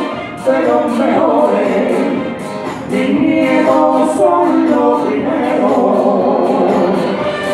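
A man sings a flamenco alborada into a microphone over amplified backing music, his voice gliding and wavering in long melismatic phrases.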